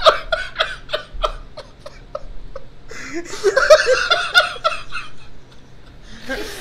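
A group of men laughing hard in fits: a run of quick, pulsing laughs that fades over the first second and a half, then a second loud bout about three seconds in that dies away.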